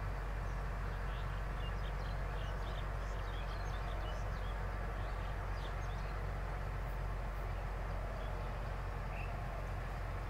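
Steady low outdoor rumble with faint, scattered high chirps of small birds over it, most of them in the first half.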